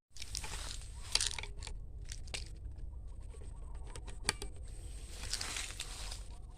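Chickens clucking faintly, with bursts of rustling and two sharp clicks.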